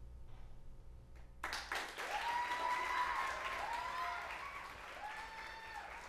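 A brief hush, then an audience suddenly breaks into applause about a second and a half in, with rising and falling cheers over the clapping.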